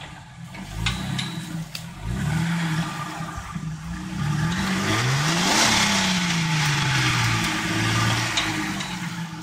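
Jeep Wrangler engine revving up and down several times as the Jeep works to climb out of a deep rut. The biggest rev comes about halfway through, rising and then falling away. A couple of sharp knocks come about one and two seconds in.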